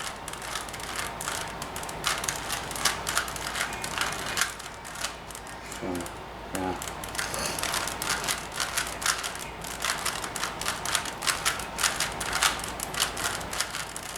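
Plastic 3x3 Rubik's cube being solved by hand: rapid, irregular clicking of its layers being turned, with a short pause about six seconds in.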